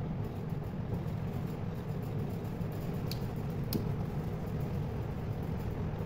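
Steady low hum, with two light clicks about three seconds in as the toggle switch and its wire leads are handled.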